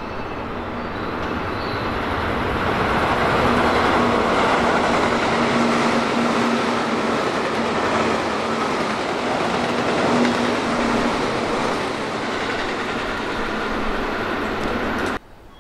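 Electric commuter train running past at speed: a dense rumble of wheels on rail that swells over the first few seconds and holds steady, with a faint steady motor hum under it. It cuts off suddenly near the end.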